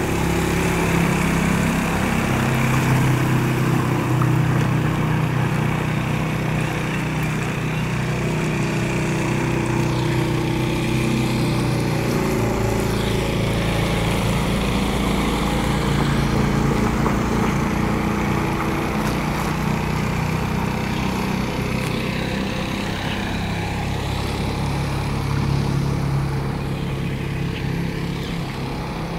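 The small engine of a 1960s Hydro-Mite mini jet boat running steadily under way, its pitch wavering slightly.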